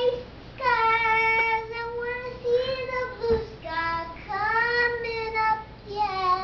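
A young girl singing her own made-up song unaccompanied, in long held notes that slide up and down in pitch, phrase after phrase with short breaks between.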